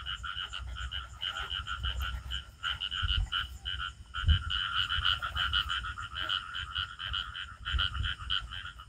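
A chorus of frogs calling in fast, pulsing trills that carry on steadily, with a few low thumps from handling.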